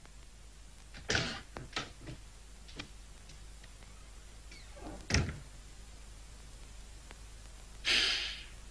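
A door being opened and shut: a quick run of handle and latch clicks about a second in, then a thud as it closes about five seconds in. Near the end, a short hissing sound.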